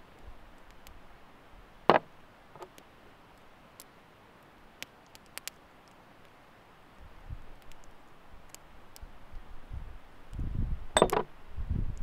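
Quiet food preparation: ground spices shaken from a small glass bowl onto minced meat, with a sharp click about two seconds in and a few scattered light ticks. Near the end a low wind rumble on the microphone comes in, with another click.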